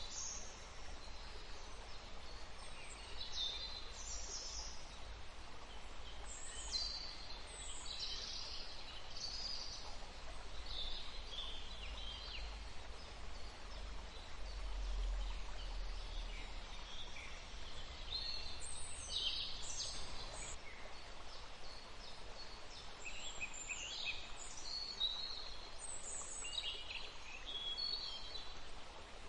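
Several songbirds chirping and singing in short, high, overlapping phrases, over a faint steady background hiss with a low rumble.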